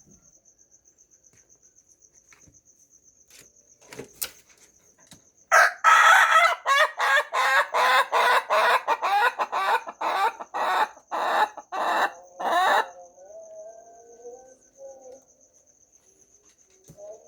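Rooster crowing at length: about five seconds in, a long, loud crow breaks into a rapid run of regular pulses for about seven seconds, then trails off in a few fainter notes. A steady high insect trill runs underneath.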